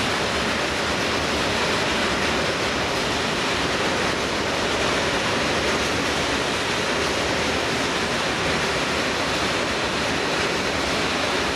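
Covered freight wagons of a freight train rolling steadily past, a continuous even rushing noise of wheels on rail.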